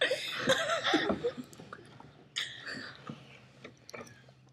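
A group of girls' voices close to the microphone: indistinct murmuring and giggling for the first second or so, then a breathy whisper about two and a half seconds in and a few soft clicks near the end.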